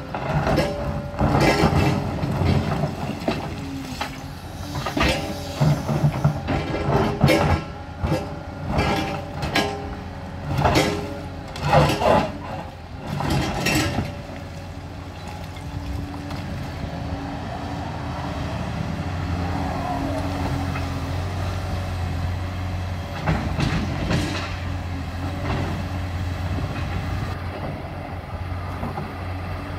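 Liebherr 946 hydraulic excavator's bucket scraping and crunching through brick and stone rubble, with irregular clattering knocks for about the first half. After that the diesel engine and hydraulics run steadily and louder as the machine swings away, with a few more knocks.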